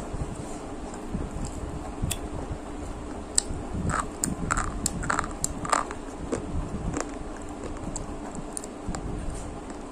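Close-miked biting and chewing of crispy fried sticks, with crunches and crackles that come thickest about halfway through.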